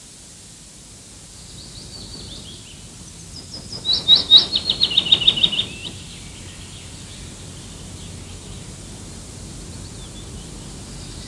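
A songbird singing: a few faint high chirps, then, about four seconds in, one loud phrase of rapid repeated notes lasting about two seconds, over a steady hiss.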